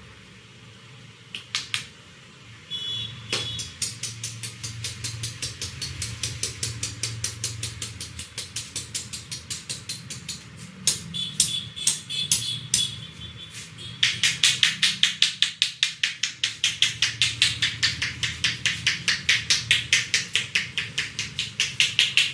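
Hands striking a head during a head massage: a fast, even run of slaps, about five a second, that begins a few seconds in and gets louder about two-thirds of the way through.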